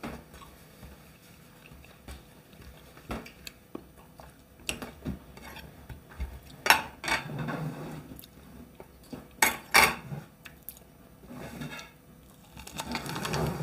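Metal spoon and fork clinking and scraping against ceramic plates as someone eats, in scattered single clinks, the loudest two close together about nine and a half seconds in.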